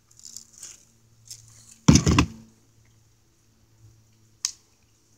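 Close handling noise: a loud clattering knock of a few quick strokes about two seconds in, then a single sharp click about four and a half seconds in.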